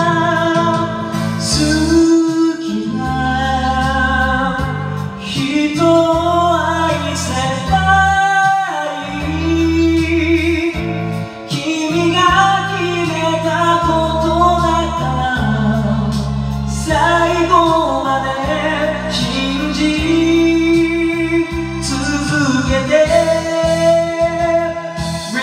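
Japanese 1980s pop song playing: a pitched lead melody that bends and phrases over a steady bass and backing band.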